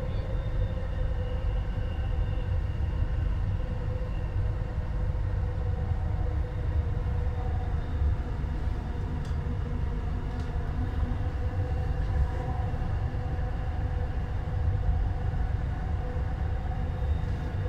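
Shanghai Metro Line 15 subway train running through a tunnel, heard from inside the car: a steady low rumble of wheels on rail with an even whine over it.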